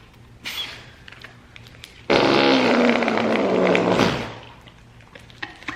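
Homemade slime squeezed to make a fart noise: one long fart-like sound of about two seconds, starting about two seconds in, its low pitch sinking as it goes.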